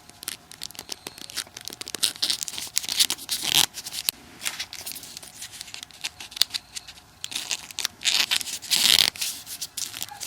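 Folded paper origami units rustling and crinkling as they are handled and pushed onto each other, in many short scratchy strokes, with a louder rustle a few seconds in and another near the end.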